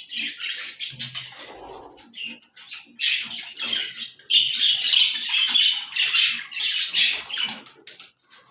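Parrot squawking and screeching in a run of harsh, repeated calls, loudest and most continuous in the middle of the stretch.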